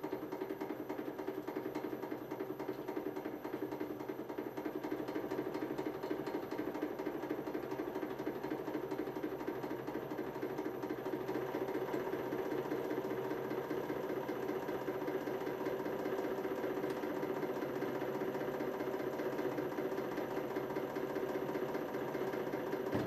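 Hydraulic press motor and pump running with a steady, fast-rattling hum as the ram bears down on a pair of pliers and the load builds, a little louder after about five seconds.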